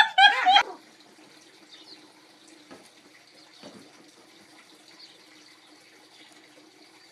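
A dog whimpering in a few short, high yips, which stop under a second in. After that only a faint steady hum with a few soft clicks is left.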